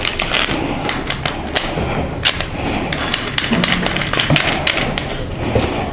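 Irregular clicks and light taps of hard plastic parts being handled, as a high-pressure hose is fitted and hand-tightened onto the base of a pressure-washer spray gun.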